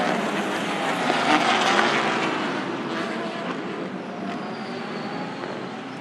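A pack of endurance race cars running past together, a dense mix of many racing engines at high revs that fades steadily as the field moves away.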